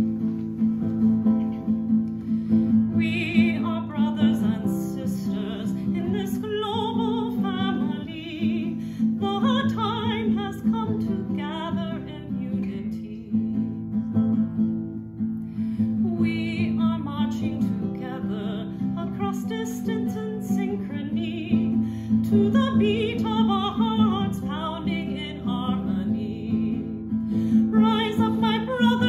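Steel-string acoustic guitar played steadily, with a woman singing over it in a wavering, vibrato-rich voice from about three seconds in.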